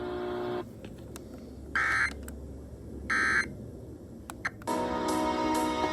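Emergency Alert System end-of-message data bursts: two short, harsh buzzy data tones about 1.3 seconds apart, followed near the end by the radio station's music resuming.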